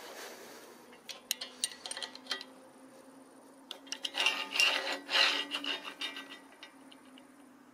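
Metal scraping and rubbing with scattered clicks as the steel roller carriage is worked along the T-profile rail by hand, its ball-bearing rollers set too tight. There are a few clicks early, then two louder scraping stretches past the middle.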